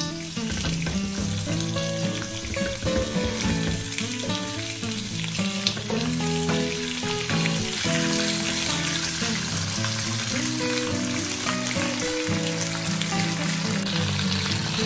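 Raw pork chops sizzling in hot olive oil in a ridged grill pan as more are laid in, the sizzle growing fuller about halfway through. Background music plays underneath.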